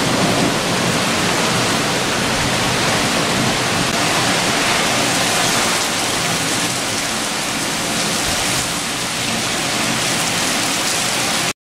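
Heavy rain falling steadily, a dense even hiss that cuts off abruptly near the end.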